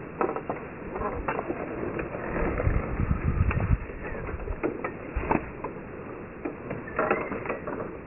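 Footsteps and handheld-camera handling noise while walking into a wooden greenhouse: scattered clicks, knocks and rustles, with a low rumble from about two and a half to nearly four seconds in.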